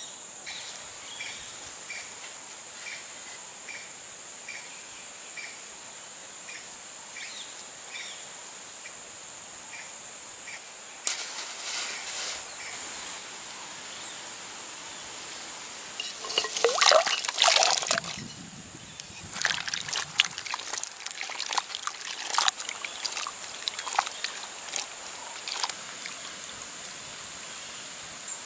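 A steady high insect drone with faint, regular chirps runs throughout. Over it come the sounds of hand food preparation: a loud rushing rattle lasting about two seconds around sixteen seconds in, then scattered dry crackles as shallots are handled and peeled.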